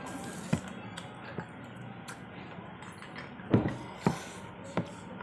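Sounds of eating from a plate with a spoon: a handful of scattered short clicks and taps, the two loudest a little past halfway, over a steady low hum.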